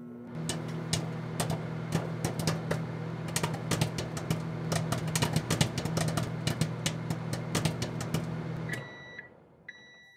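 Microwave oven running with a steady hum while popcorn kernels pop inside a silicone popper, the many sharp pops coming thick through the middle. Near the end the hum stops and the microwave beeps twice, signalling the end of the cooking time.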